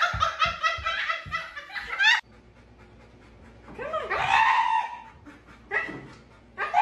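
A person laughing hard in rapid bursts, about five a second, cut off suddenly about two seconds in. After a quiet gap comes a drawn-out voice sound, then more short bursts of laughter near the end.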